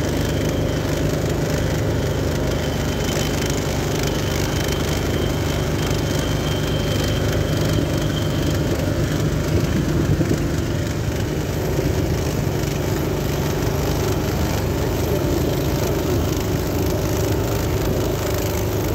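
Small engine mounted on the stern of a wooden lake boat, running steadily at an even speed and pushing the boat along.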